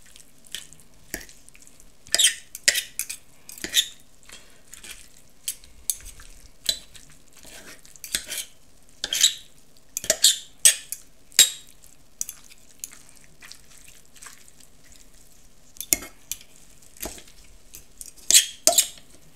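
Two metal forks pulling apart smoked pork on a ceramic plate: irregular clinks and scrapes of the tines against the plate.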